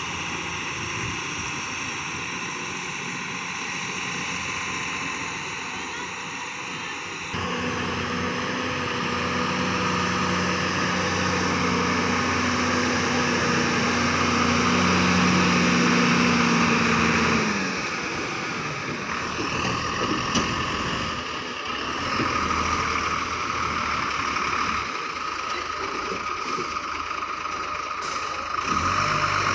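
JCB 3DX Plus backhoe loader's diesel engine working under load: its note steps up about seven seconds in, grows louder until past halfway, then drops back and runs lower and rougher to the end.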